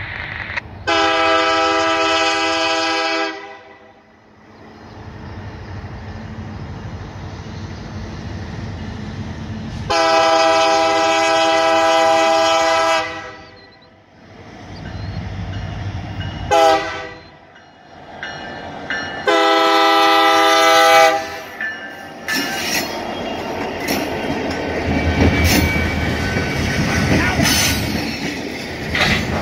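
Diesel freight locomotive's air horn sounding the grade-crossing signal: two long blasts, a short one, then a long one. The BNSF locomotive then passes close by, its diesel engine running and the wheels clattering over the rail joints.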